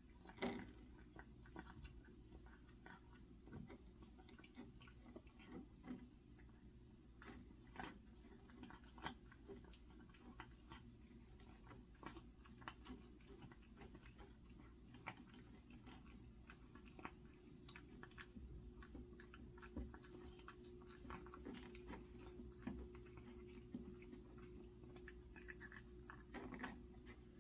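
A cat eating, recovering from tooth extractions for stomatitis: faint, irregular chewing and mouth clicks, sometimes several close together, over a low steady hum.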